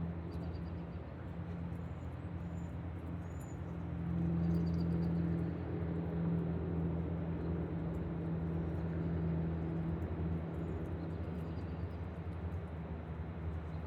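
Steady rushing noise of pouring rain and rushing water with a low drone underneath, and faint high bird chirps a few times.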